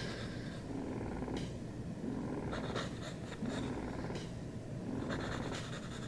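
Domestic cat purring steadily, with short scratches of a pen drawing on sketchbook paper.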